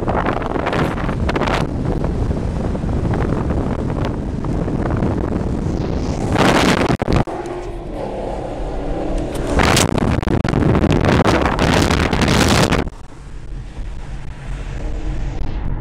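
Maserati GranTurismo S V8 engine under hard acceleration, with wind noise on the microphone. The engine surges loudly twice, about halfway through and again from about ten seconds in, and each surge cuts off abruptly before the engine drops to a lower level.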